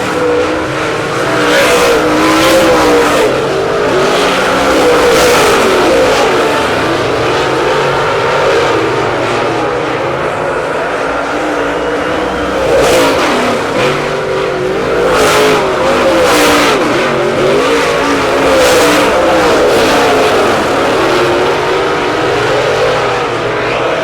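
Dirt late model race cars running at racing speed, several engines rising and falling in pitch together as they go around the track, with cars passing close now and then.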